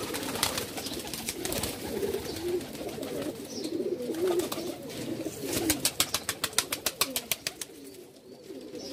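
Domestic pigeons cooing, a low wavering coo that carries on throughout. Wings flap near the start, and a fast run of sharp flutters, about eight a second, comes about six to seven seconds in.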